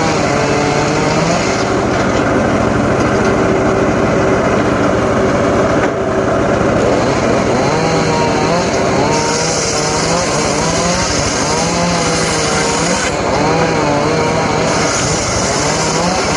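Engine-powered saw running hard, its engine pitch dipping and recovering over and over from about halfway through as it works through wood.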